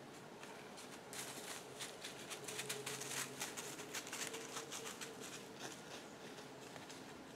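A run of quick, dry crackling rustles starting about a second in and easing off after about four seconds, over faint outdoor background.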